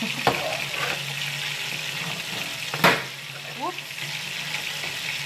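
Fried rice sizzling steadily in a frying pan while a spatula stirs and scrapes it. The spatula knocks against the pan a few times, loudest about three seconds in.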